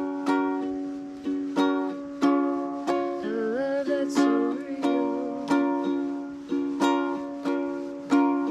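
Music: a plucked string instrument picking out notes about twice a second, each ringing and fading. A wavering held note joins briefly in the middle.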